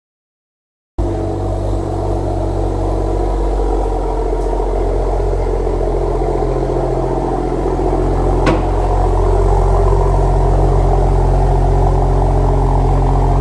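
Car engine running steadily with a deep, even hum, starting abruptly after a second of silence; a single sharp click about seven seconds later.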